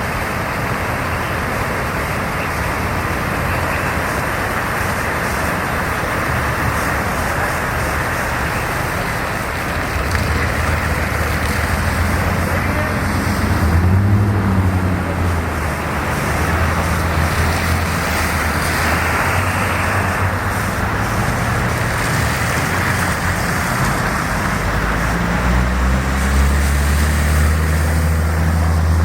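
Steady rushing of fast floodwater mixed with a motor vehicle's engine hum, which comes in about ten seconds in and is louder near the end.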